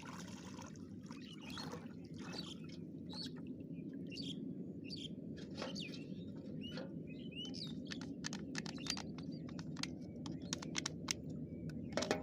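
Small birds chirping in short, quick calls over a steady low rushing background noise, with scattered sharp ticks.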